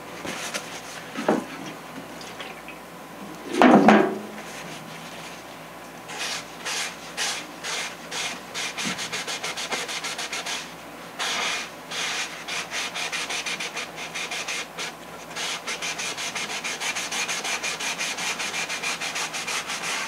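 Paper towel rubbing back and forth over the joined center seam of a foam RC airplane wing, wiping off excess glue in quick strokes, several a second, from about six seconds in. A short, louder rustle comes about four seconds in.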